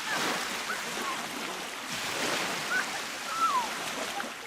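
Baltic Sea surf washing onto a beach, with a wave surging in at the start and another about two seconds in. A few short high calls sound over the surf, one falling in pitch near the end.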